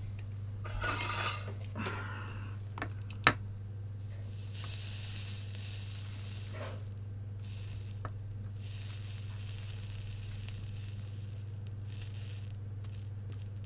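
Rosin flux sizzling under a soldering iron tip on a circuit-board pad, in two hisses, the second about four seconds long. The pad is corroded and the solder won't stick to it. A steady low hum runs underneath, with a few handling noises and a sharp click in the first few seconds.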